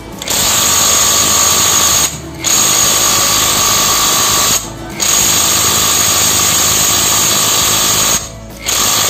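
J-LD cordless impact wrench running in four bursts of two to three seconds each with short pauses between, with a steady whine, as it spins a nut off a bolt on a diesel engine's cylinder head.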